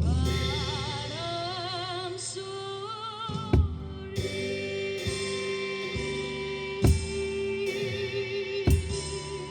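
Recorded trot song playing, with a melody in heavy vibrato over held chords, while a drum kit is played along with it: a fill ends at the start, then three single hits spaced two to three seconds apart.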